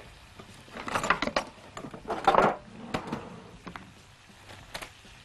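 A hand spice grinder grates in two short bursts, about one and two seconds in, followed by a few light clicks. Under it, chicken breasts and carrot slices sizzle faintly in a grill pan.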